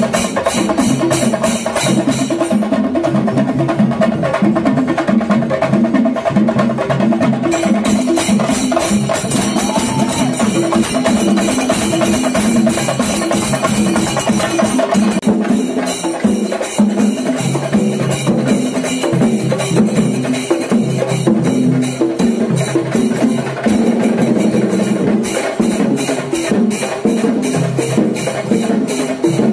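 A group of Kerala chenda drums beaten with sticks in a fast, dense, continuous rhythm.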